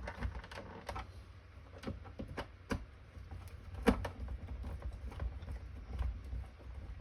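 Scattered light clicks and taps of a hand screwdriver driving screws into a jump starter's plastic case, at irregular spacing with low handling rumble, and one sharper knock about four seconds in.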